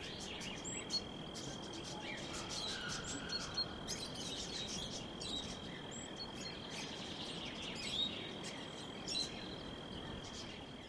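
Savanna ambience: birds chirping in short calls over a steady high-pitched insect drone and a low background hiss.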